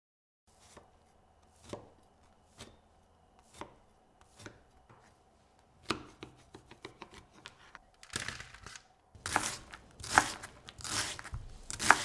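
Knife chopping on a cutting board: a few spaced strikes about a second apart, then a quick run of light taps, then louder, longer strokes near the end.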